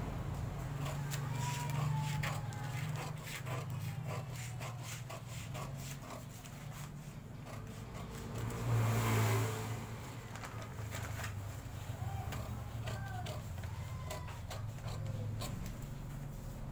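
Scissors snipping through paper pattern sheet in a long run of short, crisp cuts. Under it runs a steady low hum that grows louder for a moment about nine seconds in.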